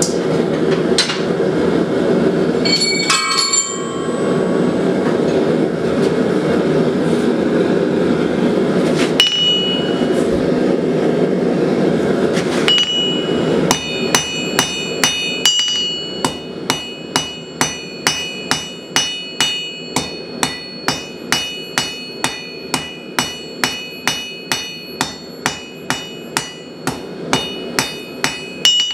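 Blacksmith's hammer striking hot steel on an anvil: a few single ringing blows over a steady rushing noise at first, then from about halfway through a steady run of forging blows, about two a second, each with a high metallic ring.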